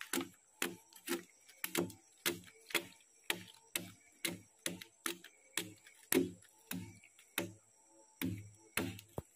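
Machete blade chopping at the face of a freshly chainsawn slab of pulai (kayu susu) wood. The strikes come steadily, about two a second, each a sharp knock with a dull thud.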